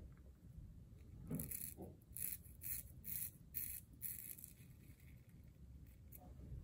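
Safety razor (Above the Tie Atlas H2) scraping through lather and beard stubble on the cheek: about six short, quick strokes in a row starting about a second in, on an across-the-grain pass.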